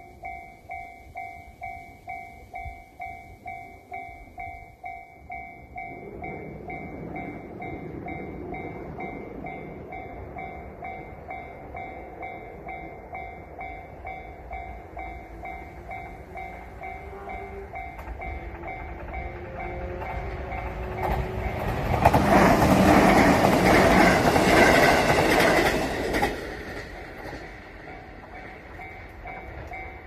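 Japanese level-crossing warning bell, the JR standard electronic chime, ringing at about two strikes a second while a train approaches and passes over the crossing. The train is loudest for about five seconds past the middle, then drops away suddenly while the bell keeps ringing.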